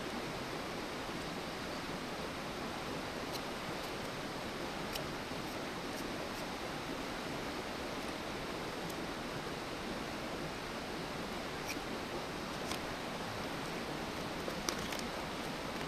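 Wood campfire burning with a steady hiss and a few sharp, scattered pops and crackles.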